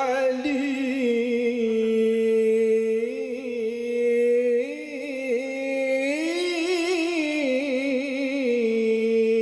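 A man singing solo and unaccompanied into a microphone in a melismatic Islamic chant style, holding long notes decorated with wavering ornaments. The melody climbs higher about six seconds in, then settles back onto a held note.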